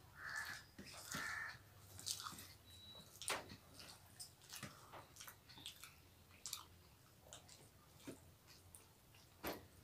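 Faint eating sounds of rice and curry eaten by hand: chewing and mouth smacks, with scattered small clicks and scrapes from fingers working the food on steel plates.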